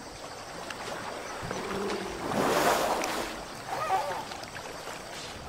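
Muddy water sloshing and splashing around wading Asian elephants, with a louder splash about two and a half seconds in.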